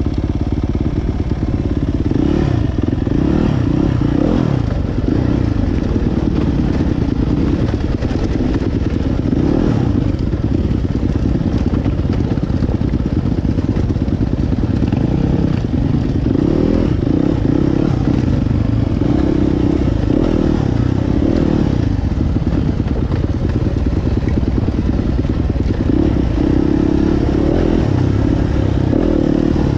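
Dirt bike engine running at low revs while ridden slowly over rough stony ground, the revs rising and falling with the throttle, with occasional clatter from the bike.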